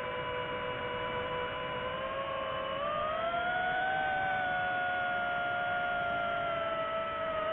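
Quadcopter drone's propellers whining: several close tones over a steady hiss that rise in pitch together about three seconds in, then hold steady.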